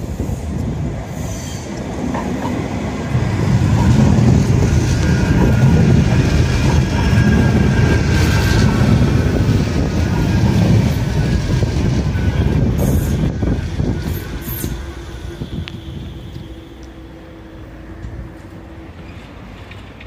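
Manchester Metrolink M5000 tram pulling into the platform and braking to a stop. Wheel-on-rail rumble is loudest for several seconds as the cars pass close by, under a falling electric whine as it slows. A steady hum remains once it has halted near the end.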